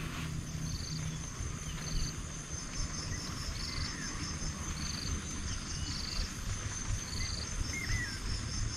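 Insect chorus: a steady high drone with a short buzzing chirp repeating about once a second, and a few brief higher chirps. Underneath is a steady low rumble and hiss.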